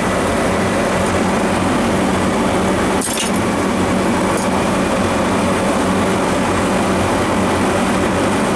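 Steady machinery drone with a low electrical hum. A hex key clinks sharply on the compressor's metal valve fitting about three seconds in, and more faintly a second later.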